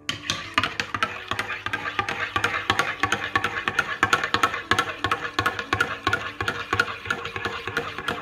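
Background music with a quick, steady percussive beat and a light melody.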